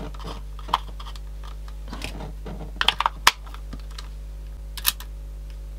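A few sharp clicks and short scrapes from a small cassette Walkman and its headphone plug being handled, over a steady low hum. The clicks cluster about three seconds in.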